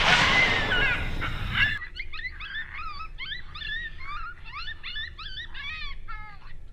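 The echo of a rifle shot dies away over the first couple of seconds. Then coyotes yip: quick rising and falling calls, two or three a second, ending with a longer falling yelp.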